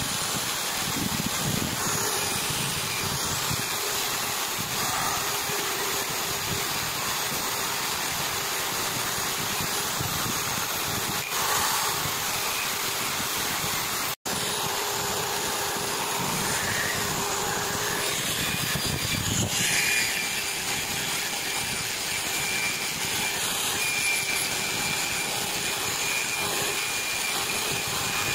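Small electric motor spinning a wire wheel brush while rusty steel clipper parts are pressed against it: a steady scrubbing hiss of wire on metal stripping rust, over the hum of the motor. The sound breaks off for an instant about halfway through.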